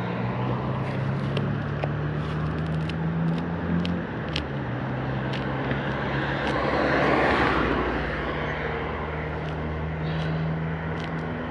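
Steady low engine hum with a broad rushing noise that swells and fades about seven seconds in, with faint scattered clicks.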